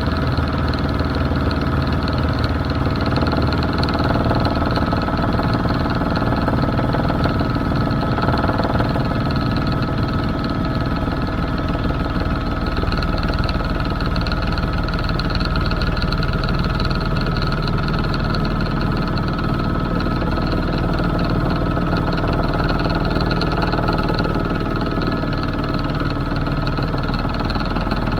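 Helicopter in flight heard from inside the cabin: a steady, unbroken drone of engine and rotor, with a high whine held at one pitch.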